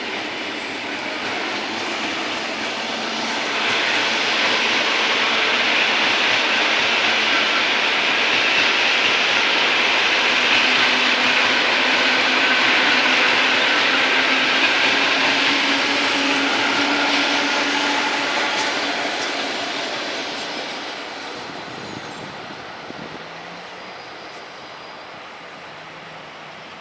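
ED4M electric multiple-unit train passing: its running noise swells about four seconds in, stays loud for some fifteen seconds, then fades away over the last several seconds.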